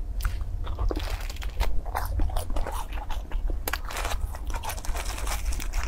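Crispy fried dough sticks (youtiao) crackling and crunching as they are handled and torn apart by hand, in a dense run of irregular crackles over a steady low hum.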